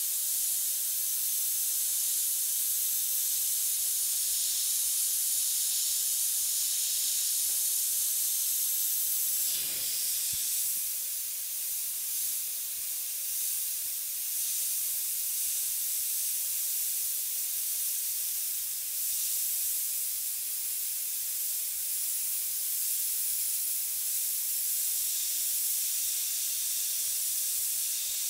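Iwata HP-CS Eclipse airbrush spraying candy paint: a steady hiss of compressed air through the nozzle, dipping briefly about ten seconds in.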